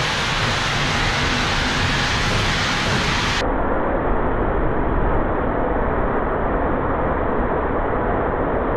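Self-serve car wash high-pressure wand spraying water in a loud, steady hiss.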